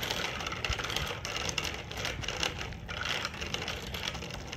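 Bicycles rolling along an asphalt road: a fast, uneven run of small clicks and rattles over a steady low rumble of tyres and wind on the microphone.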